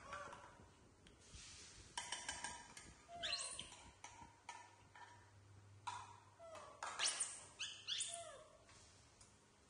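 Baby macaques giving high squealing calls that sweep sharply down in pitch, several times, between short scrapes and clinks of a spatula and plate at a wok.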